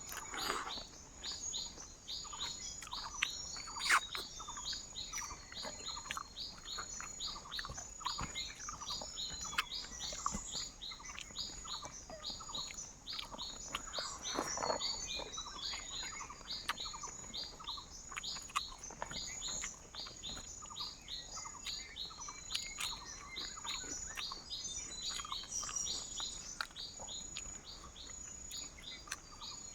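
Jungle birds calling over and over in short falling notes, about two a second, over a steady high insect drone, with a few scattered clicks and knocks, the loudest about four seconds in.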